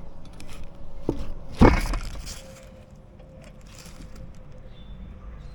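Hand tools and brake parts being handled on a motorcycle's rear brake: a sharp knock about one and a half seconds in, a smaller one just before it, then light clicks and rustling.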